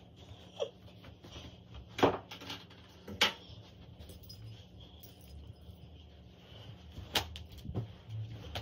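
A few sharp knocks and clatters of household objects being handled and set down, the loudest two about two and three seconds in and two more near the end, over a low steady hum.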